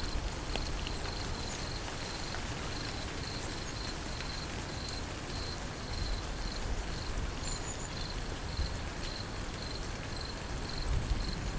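Steady rain falling, an even hiss, with an insect chirping in a regular high pulse about twice a second.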